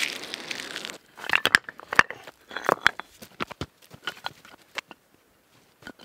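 Dry birch bark crumpling and crackling in a hand, then, from about a second in, a quick string of sharp clacks and knocks as rocks are set against one another, thinning out towards the end.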